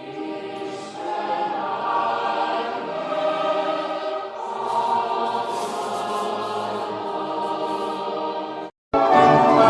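A group of people singing a national anthem together in slow, sustained notes. Near the end the singing cuts off abruptly, and louder instrumental music with strings comes in.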